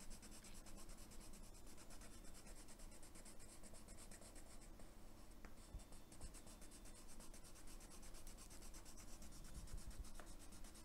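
Faint, steady scratching of a Derwent Metallic watercolour pencil shading back and forth across a colouring-book page, laid on with medium pressure.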